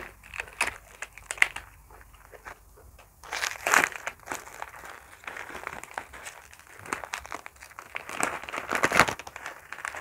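Thin plastic bags crinkling as they are handled and a small packet opened, in irregular crackles with louder bursts about three and a half seconds in and near the end.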